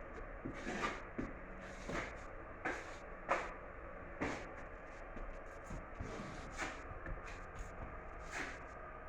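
Drywall joint compound being hand-sanded on a wall: short, uneven scraping strokes, roughly one a second.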